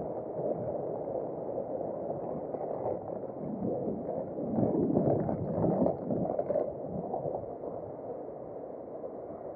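Muffled city street noise, mostly road traffic, swelling louder about halfway through.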